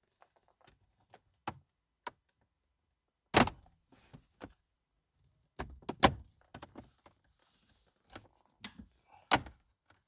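Plastic trim panel on a second-generation Scion xB's centre console being pulled loose from its clips: scattered sharp plastic clicks and knocks, the loudest about three and a half, six and nine and a half seconds in.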